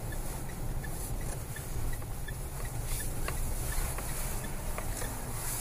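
Car cabin interior: low engine and road rumble as the car turns, with the turn-signal relay ticking evenly about three times a second and a few light knocks in the middle.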